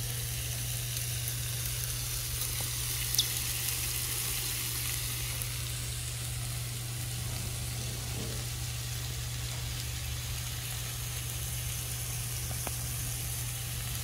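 Food sizzling on a hot grill pan, a steady frying hiss, with a steady low hum underneath and one brief click about three seconds in.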